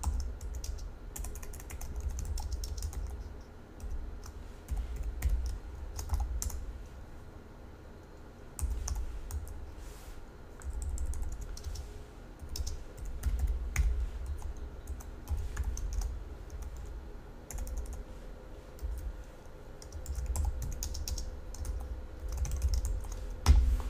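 Typing on a computer keyboard in quick bursts of keystrokes with short pauses between them, and one heavier key thump near the end.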